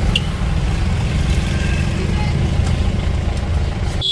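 Engine and road noise heard inside the cabin of a moving car: a steady low drone.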